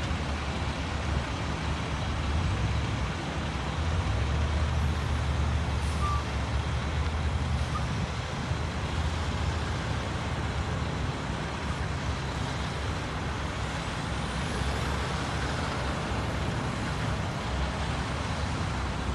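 Road traffic passing, with trucks, among them a tractor-trailer and a tank truck, driving by: a steady run of engine and tyre noise. Wind gusts on the microphone add an uneven low rumble.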